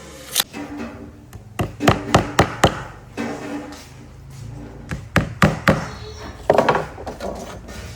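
A run of irregular sharp knocks and taps on wood, coming in quick clusters with short gaps, as wooden pieces are struck or handled.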